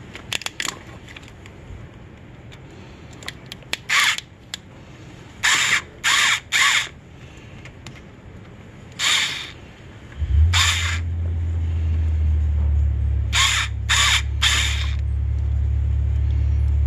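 Short rasping bursts, some singly and some in quick groups of two or three. About ten seconds in, an engine starts with a thump and settles into a steady low hum that is louder than everything else.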